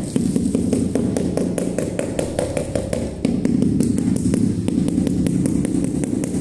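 Rubber mallet tapping a ceramic floor tile in quick, even strokes, about six a second, bedding it into the fresh mortar.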